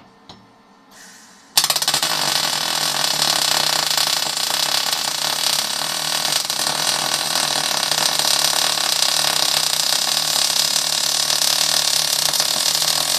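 MIG welding gun striking an arc about a second and a half in after a click and a short hiss, then a steady, loud crackling hiss as the arc burns continuously, laying a weld bead on steel.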